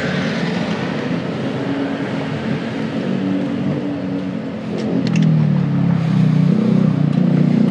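Yamaha NMAX scooter's single-cylinder engine running, with wind and road noise. The engine note becomes louder and steadier about five seconds in, as the scooter pulls up.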